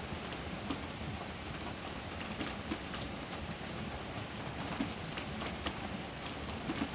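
Heavy rain on the roof, heard from inside the shelter: a steady hiss with scattered sharper taps of single drops.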